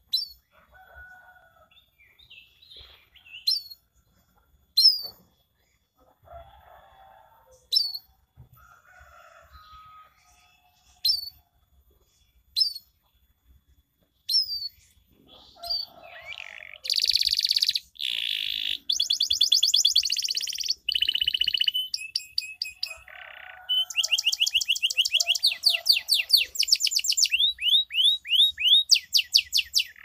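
Canary singing: single sharp, high chirps falling in pitch, about one every second and a half, then from about halfway through, loud long rolling trills of rapidly repeated notes (the 'cuit cuit' chirps running on into the 'ngerol' roll).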